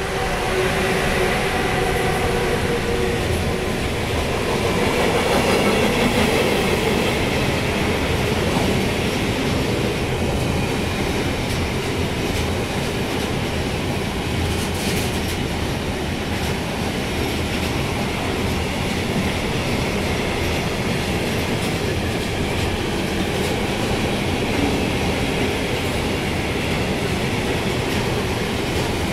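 A freight train passing slowly, headed by two DB Vectron electric locomotives that give a steady hum with a few clear tones in the first few seconds. After them comes a long string of intermodal wagons carrying lorry trailers, which rumble and clatter steadily over the rails.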